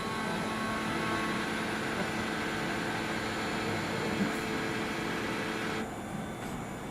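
Takamaz XT-8MY CNC lathe running a machining cycle on a shaft: a steady mechanical whine of several tones over a hiss. It stops about six seconds in.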